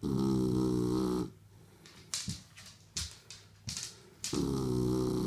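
Shar Pei puppy snoring: two loud, steady-pitched snores, each about a second long and about three seconds apart, with a few short sharp sounds between them.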